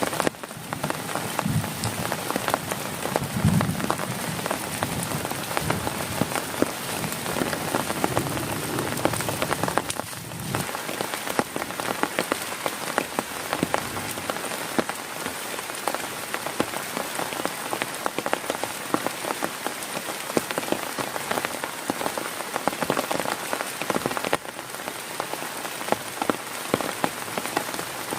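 Heavy rain falling on a tent: a dense, steady patter of individual drops, with a few heavier low thuds in the first few seconds.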